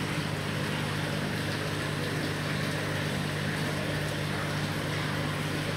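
Steady hum of a running motor, with an even hiss over it.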